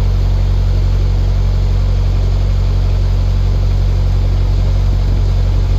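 Narrowboat engine running steadily under way, a constant low hum with no change in speed.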